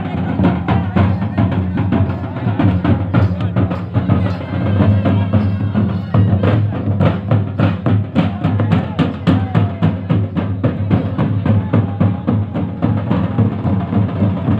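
Loud folk drumming: dense, fast drum strokes over a steady low drone, played for a traditional village wedding dance.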